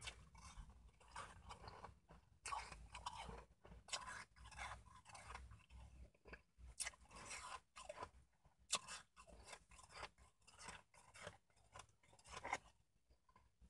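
Shaved ice being chewed and crunched in the mouth, a rapid, irregular run of short crunches.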